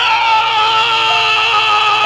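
A man's loud, drawn-out anguished cry of "No!", held as one long wavering note, over a low music bed.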